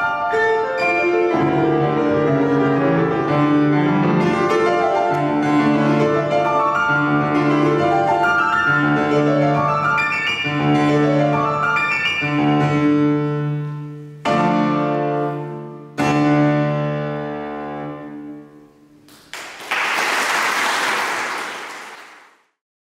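Solo piece on a Petrof grand piano, closing with two loud chords that ring and fade, then a soft ending. Audience applause follows for about three seconds before cutting off.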